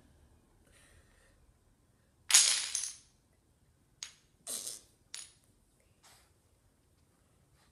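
Wooden Jenga blocks clattering onto a hardwood floor as a puppy knocks them out of a tower: one loud clatter about two seconds in, then several smaller knocks and clatters over the next few seconds.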